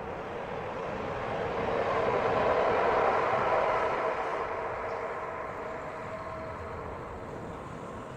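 Noise of something passing by, swelling to its loudest about three seconds in and then slowly fading away.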